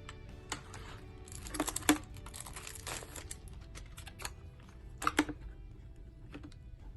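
Album packaging being handled: rustling and light tapping as boxed albums are picked up and set down, with a sharper knock about two seconds in and another about five seconds in.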